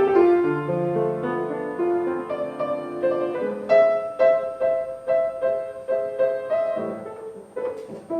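Solo piano playing a slow melody, the notes struck and left to ring, picking up into a run of quicker repeated notes about halfway through.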